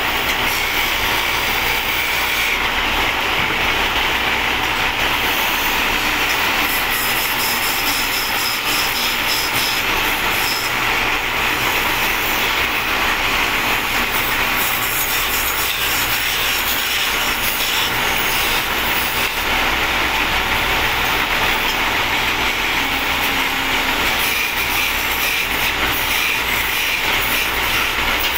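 Wood lathe turning a wooden rolling pin, with a hand-held chisel cutting into the spinning wood: a steady scraping over a low, even hum.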